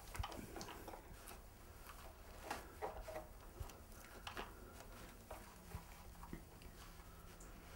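Faint cloth rustling and small scattered clicks as a plastic model racing car is handled and polished on a wooden shelf.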